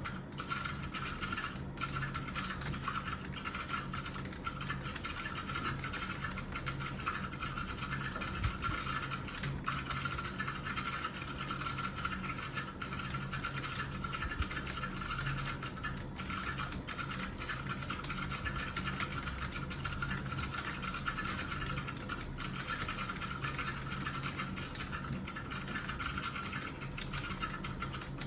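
Fast, continuous typing on a computer keyboard: a rapid, unbroken stream of keystroke clicks over a low steady hum.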